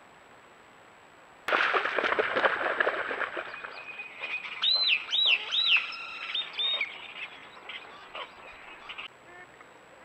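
Marsh birds and ducks calling: a dense, loud chatter begins suddenly about a second and a half in, then a quick run of three or four rising-and-falling whistled calls near the middle, with scattered calls dying away toward the end.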